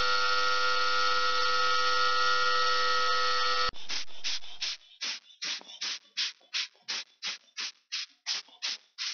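DADI DA-968 ultrasonic cleaner running, a steady hiss with a few steady tones, as it cleans watch parts in a jar of fluid; it cuts off abruptly after nearly four seconds. A rubber bulb air blower follows, squeezed in short hissing puffs about three times a second to blow a watch movement's mainplate clean and dry.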